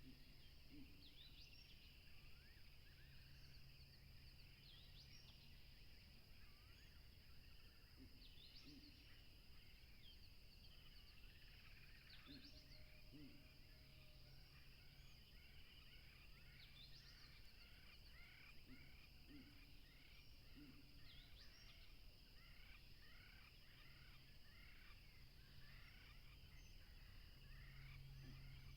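Faint wild birdsong: many birds chirping and whistling with short gliding calls over a steady high-pitched background hum. About halfway through, a fast run of repeated chirps starts and carries on, and a few low short calls break in now and then.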